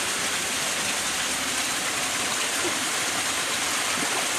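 Shallow forest stream running, a steady rushing hiss of water.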